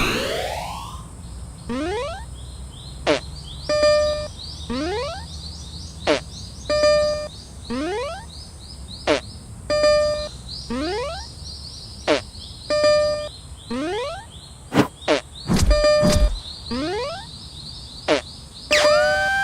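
Cartoon level-crossing alarm sound effects: falling whistle-like sweeps alternate with short clicks and a steady ringing tone that recurs about every three seconds. A few low thuds come about three-quarters of the way in.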